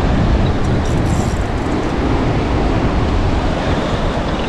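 Wind rumbling on the microphone over the steady wash of breaking surf.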